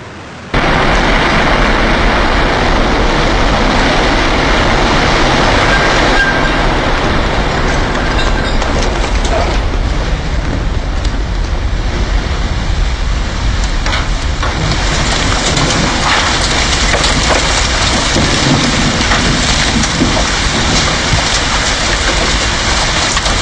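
Loud, unbroken roar of the World Trade Center's North Tower collapsing, heard from street level. It starts suddenly about half a second in.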